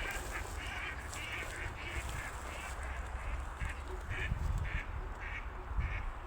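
A flock of ducks quacking in a steady chorus of short calls, about two to three a second, over a low rumble.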